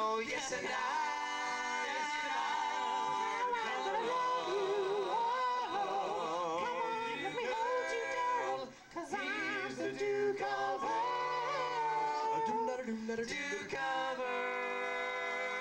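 Male a cappella vocal group singing close harmony through microphones, several voices holding notes with wavering vibrato; the singing breaks off briefly about nine seconds in.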